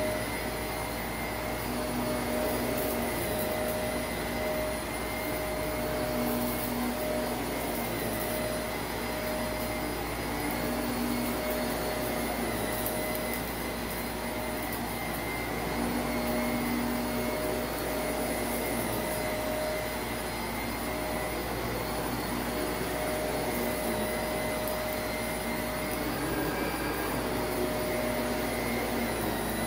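Shark Navigator upright vacuum running steadily while pushed over a thick carpet: a constant motor hum and whine, with a light crunch of small debris being sucked up now and then.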